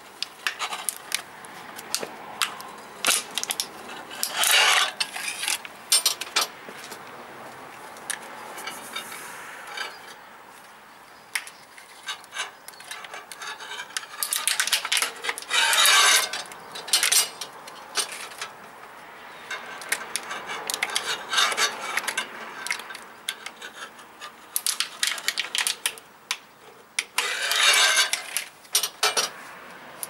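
Manual lever bead breaker being worked to break the bead of a motorcycle front tyre: repeated metallic clinks and rattles from the tool's lever and arm, with four longer scraping bursts, about six seconds apart, as the tyre is forced down off the rim.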